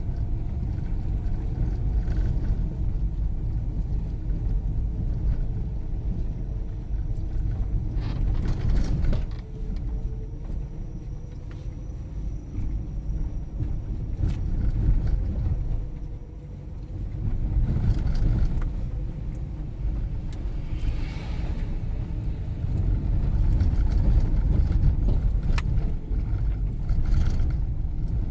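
Fiat Strada rolling slowly down a cobblestone street, heard from inside the cab: a steady low rumble of the tyres on the stones, with a few light clicks and rattles. No knock comes from the front end, where the loose steering rack has been replaced.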